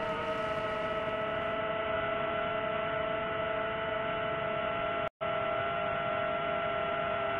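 FPV drone's motors whining steadily, several close tones that sag slowly in pitch. The sound drops out completely for an instant about five seconds in.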